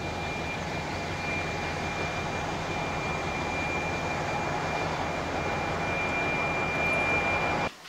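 Steady engine drone from a river towboat's diesel engines as it passes. A low hum is mixed with a thin, steady high whine, and the sound cuts off suddenly near the end.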